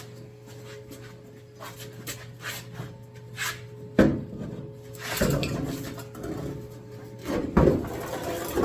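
A car hood being lifted and handled by hand: a sharp knock about four seconds in, then clattering and rubbing of the panel as it is shifted and set, over a steady low hum.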